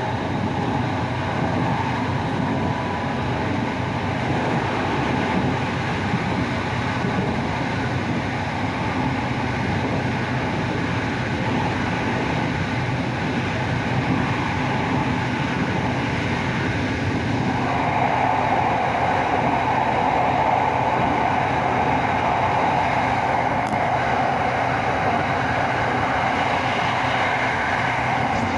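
SRT Red Line electric commuter train (Hitachi AT100 unit) running at speed, heard from inside the carriage: a steady rumble of wheels on rail and running noise. Its higher-pitched part grows louder a little over halfway through and stays up.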